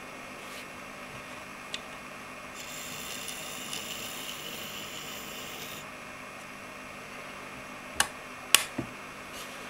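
Tiny electric motor in a 1:76-scale radio-control conversion of a die-cast AEC truck running with a thin high whine for about three seconds, starting a couple of seconds in. Near the end, two sharp clicks, the loudest sounds here.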